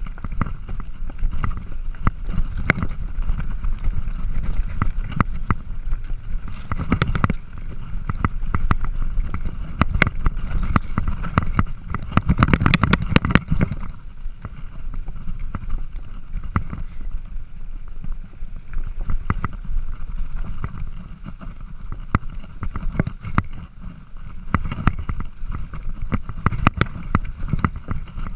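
Mountain bike ridden fast over a rough dirt trail: a steady low rumble of tyres and rushing air, broken by frequent rattling clicks and knocks from the bike over bumps, loudest about halfway through.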